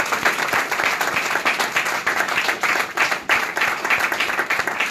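Audience applauding: many people clapping steadily and densely at the close of a speech.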